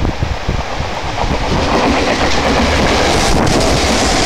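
Electric commuter train of the Tokyo Metro Chiyoda Line running past close by. Its wheels knock over the rail joints, and it grows louder from about a second and a half in as the cars draw alongside.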